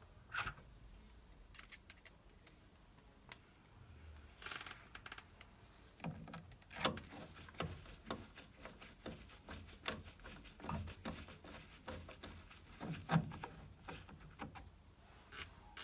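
Irregular clicks, taps and knocks of hand tools and metal parts being handled, growing busier after about six seconds.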